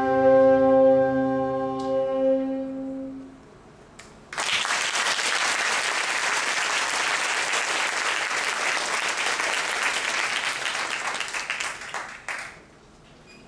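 Saxophone ensemble holding its last chord, which dies away about three seconds in; after a short pause the audience applauds for about eight seconds, then the applause stops.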